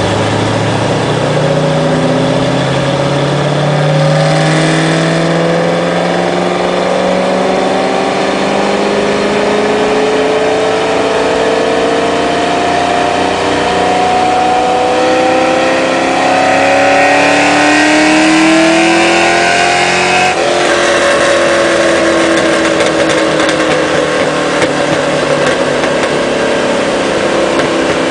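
Ford 5.0 (302) V8 of a 1991 Mustang GT with headers and full exhaust, under full throttle on a chassis dyno, its pitch climbing steadily for about twenty seconds. It then drops off suddenly and winds down on deceleration. The owner says the motor was losing a cylinder.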